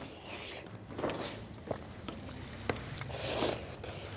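Eating sounds at a table: soft mouth and hand noises with two light clicks in the middle and a louder hiss near the end.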